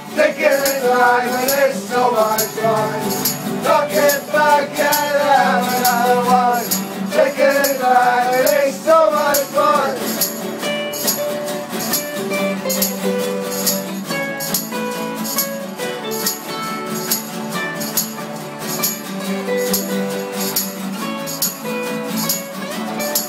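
Acoustic guitars strummed in a live group jam, with men singing together for about the first ten seconds before the playing carries on without voices. Hand percussion keeps a steady rattling beat throughout.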